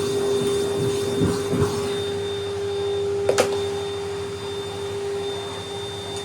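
Vacuum cleaner running steadily with a humming motor tone and a thin high whine, being run over a cat's fur to groom her. Two sharp knocks come a little over three seconds in.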